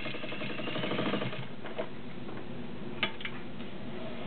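All-metal Dressmaker Model 90 zigzag sewing machine running under its electric motor, the needle stitching in a fast even rhythm that stops about a second and a half in. A few light mechanical clicks follow.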